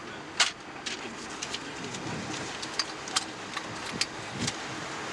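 Steady hiss of airliner cockpit ambience, with scattered sharp clicks at irregular moments.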